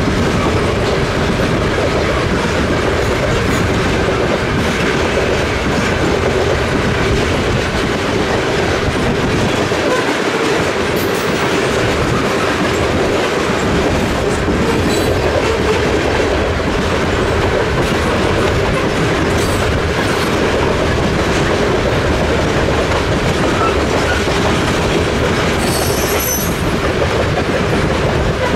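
A long CN freight train's cars rolling past, with a steady rumble of steel wheels on rail and clickety-clack over the rail joints. A brief high-pitched wheel squeal comes near the end.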